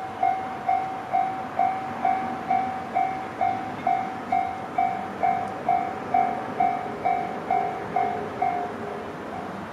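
Japanese railway level-crossing warning bell ringing its repeated two-per-second 'kan-kan' tone. Near the end the strikes grow softer and a second, lower-pitched tone joins them.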